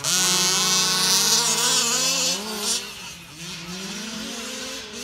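Two-stroke petrol engines of several 1/5-scale RC cars revving hard, one loud and close for the first two and a half seconds with a high buzzing whine, then quieter engine notes rising and falling as the cars run on.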